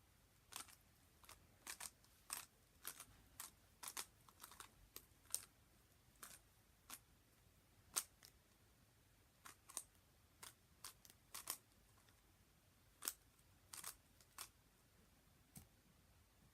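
Zcube M speed cube being turned by hand: its plastic layers make irregular light clicks and snaps, sometimes two or three in quick succession, with short pauses between turns.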